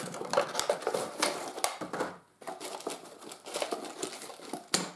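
Cardboard box and clear plastic blister tray rustling and crinkling as the tray is slid out of the box, with scratchy handling noise and many small clicks, a short pause a little past two seconds, and a sharp click near the end.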